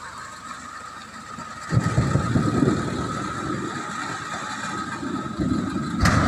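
Backhoe loader's diesel engine running, getting much louder about two seconds in as it lifts its front bucket loaded with oil palm fruit bunches. Just before the end there is a loud crash as the bunches tip into a steel bin.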